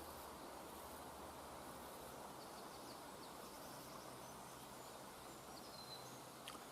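Quiet woodland background: a steady faint hiss, with a few faint, high, short bird chirps in the second half.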